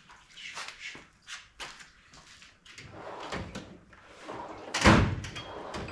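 Hand tools and metal parts clinking and knocking during disassembly work on a truck's front end, a run of short sharp clicks with one loud clank about five seconds in.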